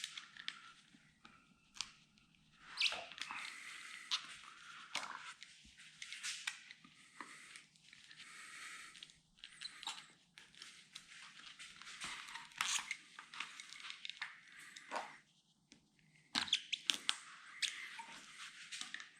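Rubber windscreen seal of a VW T2 bay-window bus being cut and worked free from around the glass by hand: irregular runs of rasping scrapes and sharp clicks with short pauses between them.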